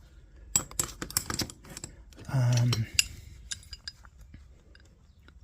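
Metal hand tools clicking and clinking together as they are handled and set down: a quick, uneven run of light knocks and taps in the first half, then stillness.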